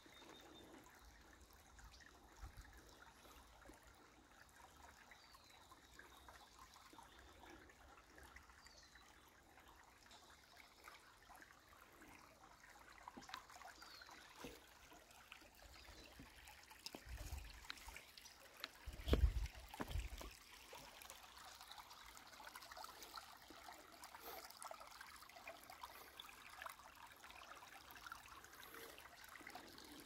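Shallow creek water trickling faintly over stones. A few low thumps come a little past halfway.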